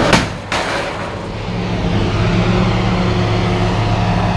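Two clanks of scrap metal hitting the pile in the first half second, then a steady engine running at an even pitch.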